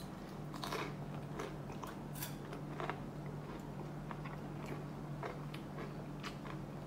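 Low steady hum with faint, scattered clicks, about ten of them spread irregularly.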